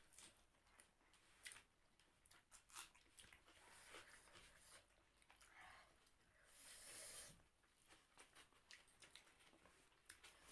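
Faint chewing and small wet mouth clicks from people eating rice and egg curry, with a short breathy hiss about seven seconds in.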